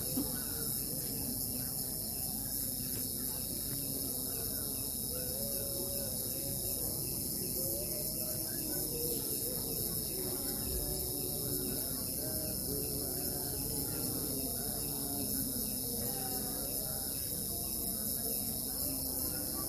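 Crickets chirping in a continuous, steady chorus.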